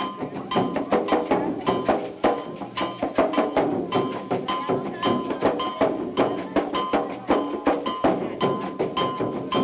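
Latin American dance music with a quick, steady percussion rhythm of sharp strikes and short repeated held notes.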